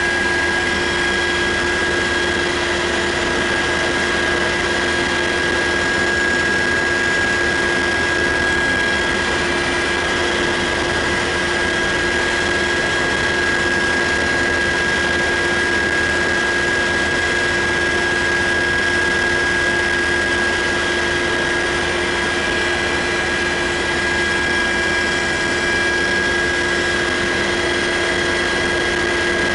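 UH-60 Black Hawk helicopter in cruise flight, heard from inside the cabin: its two turboshaft engines and rotor drive give a loud, steady rushing noise with a constant high whine over it.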